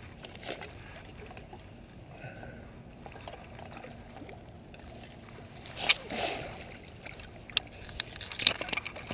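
Water sloshing and splashing as a hooked channel catfish is drawn into a landing net at the bank, with a few sharp clicks in the second half, the loudest about six and eight and a half seconds in.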